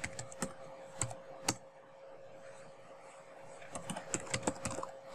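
Computer keyboard typing: a few keystrokes in the first second and a half, a short pause, then a quicker run of keystrokes near the end. A faint steady tone sounds underneath.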